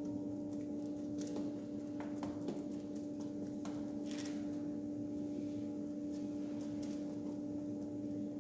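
A paintbrush dabbing and scraping paint onto a car's steel sill, a scatter of faint short ticks and strokes, over a steady hum.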